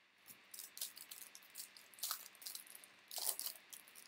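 Topps Series 1 baseball trading cards being flipped and slid against one another while going through a pack: a quick run of crisp card-on-card clicks and swishes, loudest about two and about three seconds in.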